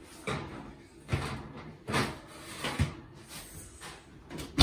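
Metal baking sheet knocking and scraping onto an oven's wire rack, a few separate clatters about a second apart, then the oven door banging shut at the end, the loudest of them.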